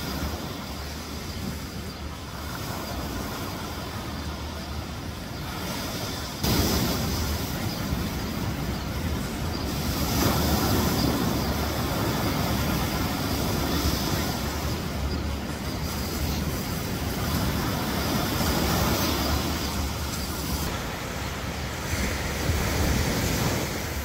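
Ocean surf breaking and washing up on a sandy beach: a continuous rushing with a deep rumble, swelling and easing as each wave comes in. It grows suddenly louder about six seconds in.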